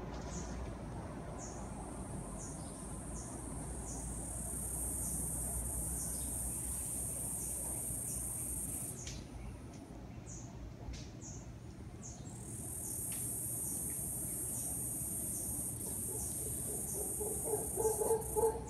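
Tropical forest sound: a high, steady insect drone that stops around 9 seconds in and starts again about three seconds later, with short chirps repeating every half second or so. Underneath runs a low rumbling roar from distant howler monkeys, with a few louder low bursts near the end.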